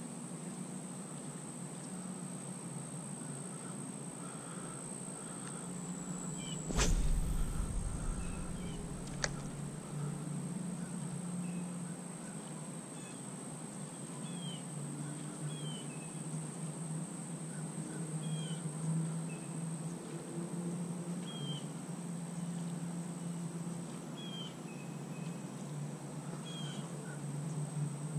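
Outdoor ambience: scattered short bird chirps over a steady high-pitched whine and a low hum. A thump with a low rumble comes about seven seconds in, and a sharp click about two seconds later.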